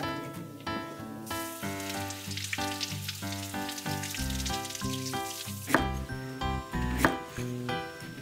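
Background music over a kitchen tap spraying water onto vegetables being rinsed by hand, a hiss that stops about five and a half seconds in. Then two sharp knife chops through a daikon radish onto a wooden cutting board near the end.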